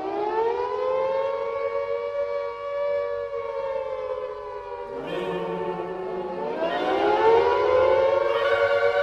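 Air-raid siren wailing: its pitch rises and holds, sags slowly, then rises again about five seconds in. This is the rising-and-falling warning of an air raid.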